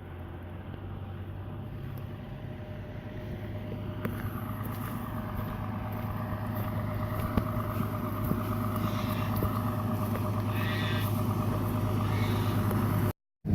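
A vehicle engine running steadily with a droning hum that grows gradually louder.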